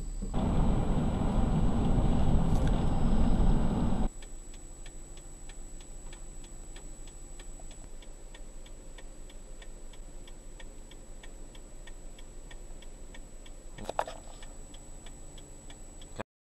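Loud rumble of thunder, deepest in the lows, cut off abruptly after about four seconds. Then comes an even ticking, about three ticks a second, over a faint high steady whine, with a single sharp knock near the end.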